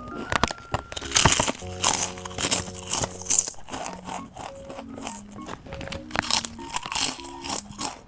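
Close, repeated crunching of thick potato chips being bitten and chewed, over light background music with a simple stepped melody.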